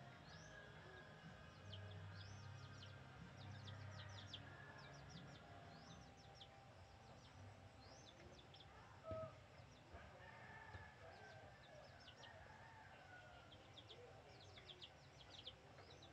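Faint fowl and bird sounds: short, high chirps repeating all through, and a drawn-out rooster crow about ten seconds in. A single soft knock just after nine seconds is the loudest moment.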